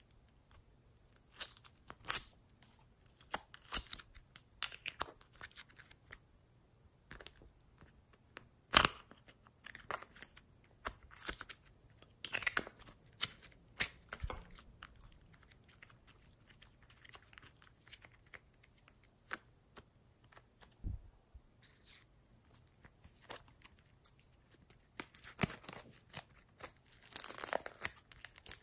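Hands kneading and stretching slime. The slime gives off irregular sticky crackles and clicks, with a denser, louder run of crackling near the end.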